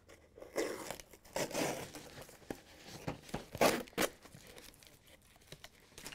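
Clear packing tape being torn by hand from a cardboard shipping case, in several short ripping pulls, the loudest a little past halfway, with the cardboard crinkling.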